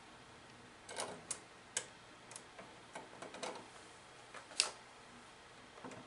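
Scattered light clicks and taps of hands fitting a plastic toggle-switch cover plate and setting a screwdriver to its screws. They come at irregular intervals, with one sharper click about two-thirds of the way in.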